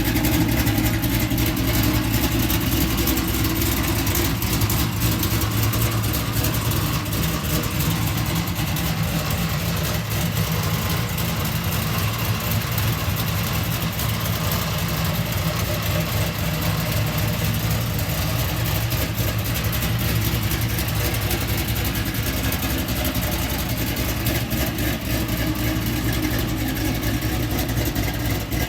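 LS V8 engine in an Oldsmobile Cutlass idling steadily, running again now that its fuel pump circuit is fixed.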